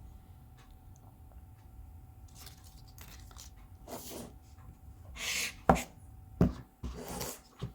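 Hands handling the iPhone 13 Pro's box and packaging: several short rustling, scraping passes of paper or plastic, with three sharp clicks or taps in the second half, the first of them the loudest.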